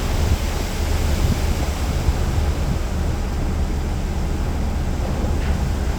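Steady wind buffeting the microphone, a low rumble over the rushing noise of the sea.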